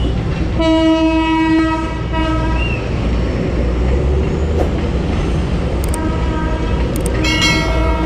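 A passenger train crossing a road at a level crossing, rumbling past with two blasts of its horn: one about two seconds long starting about half a second in, and another near the end.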